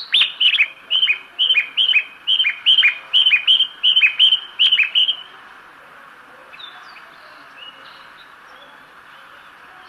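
Recorded bird-chirp guidance sound from a Japanese train station loudspeaker: a short high chirp followed by a falling tweet, repeated about twice a second in an even, machine-like pattern. It stops about five seconds in, leaving a steady hiss of station ambience with a few faint chirps.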